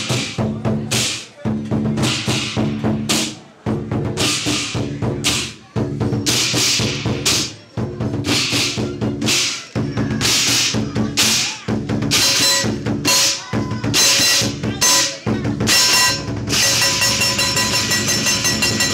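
Drums and cymbals beating a loud, steady rhythm. Ringing metallic tones join in about two-thirds of the way through.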